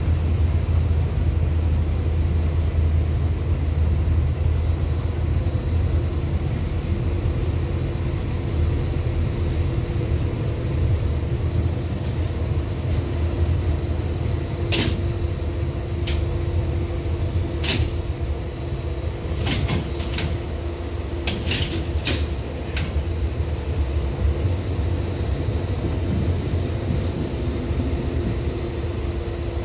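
LVS-97K tram running along its track, heard from inside the passenger cabin: a steady low rumble with a faint steady hum. About halfway through comes a run of roughly nine sharp clicks over some eight seconds.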